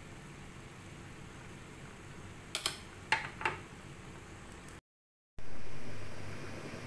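Water simmering around dumplings in a frying pan, a steady bubbling hiss with three sharp pops about midway. After a brief break in the sound, a louder hiss that fades away over a second or so.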